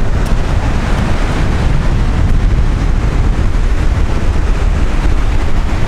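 Wind buffeting the microphone in a steady, loud rumbling rush, with the wash of ocean surf mixed in.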